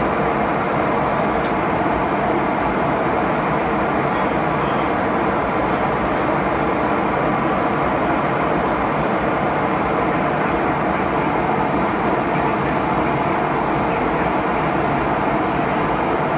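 Steady cabin noise inside a McDonnell Douglas MD-88 airliner in flight: an even rush of air along the fuselage with the hum of its rear-mounted Pratt & Whitney JT8D turbofans, heard from a forward seat.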